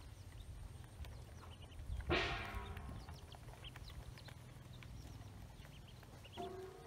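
Ducklings feeding in a plastic basin: scattered short high peeps over light tapping as their bills peck feed off the plastic. About two seconds in, one louder, longer call stands out above them.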